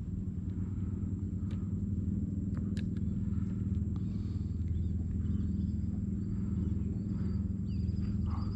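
A steady low mechanical hum, with a few sharp clicks and short high chirps near the end.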